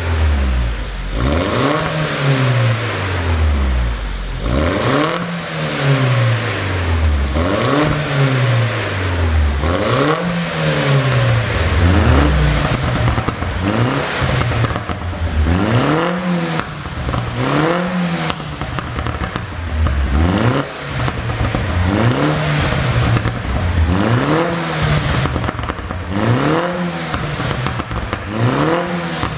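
2008 BMW R56 Mini Cooper S's turbocharged 1.6-litre four-cylinder engine revved again and again, about every two seconds, each rev rising and dropping back. As the revs fall the exhaust crackles and pops from a pop-and-crackle tune.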